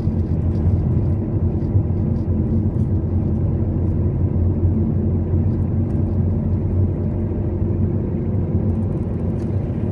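A moving car's steady low rumble of engine and road noise.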